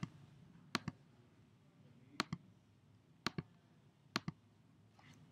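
Four faint computer clicks about a second apart, each a quick pair of snaps like a button pressed and released, with a fainter fifth one near the end.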